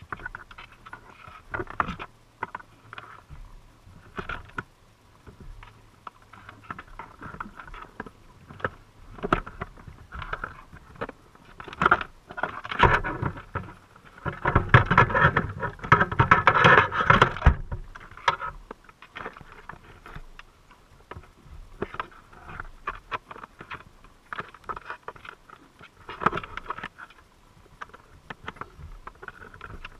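Underwater sound picked up through a GoPro's waterproof housing inside a crab trap: scattered crackling clicks and ticks, with a louder rushing swell lasting several seconds in the middle.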